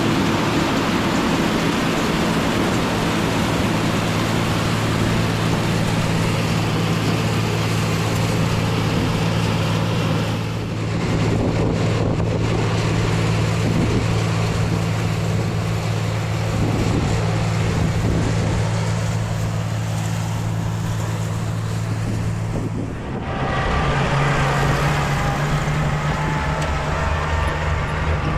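Tractor engine running steadily with a mounted New Idea two-row corn picker working, a steady engine hum under a broad mechanical noise. The sound dips and shifts abruptly about ten seconds in and again near 23 seconds, where the engine note changes.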